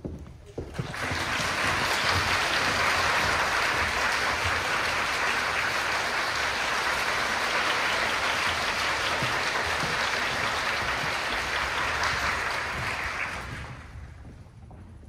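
Audience applauding, swelling in about a second in, holding steady, and dying away near the end.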